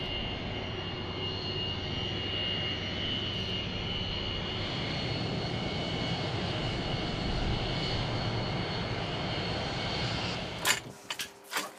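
Jet aircraft engines running steadily, a broad rush with a high whine over it. Near the end the engine sound cuts off and a few sharp clicks follow.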